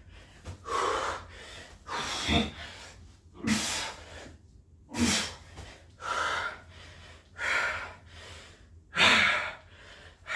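A man breathing hard from exertion in the middle of a set of burpees: about seven loud, gasping breaths, roughly one every second and a half, the strongest near the end.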